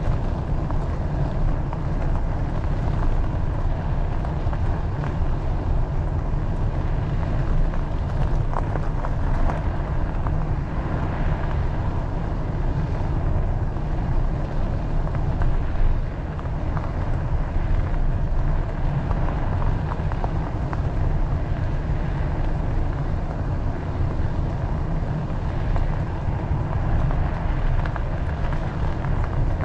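Wind buffeting the microphone while cycling: a steady low rumble with a fainter hiss above it.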